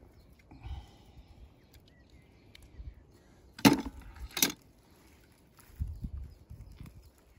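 Two sharp knocks, less than a second apart, about halfway through, with a few faint low thuds around them.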